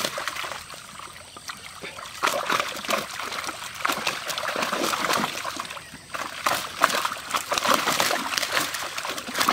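Big fish thrashing in shallow water inside a seine net being gathered by hand, throwing up repeated splashes. The splashing is lighter at first and gets busy from about two seconds in.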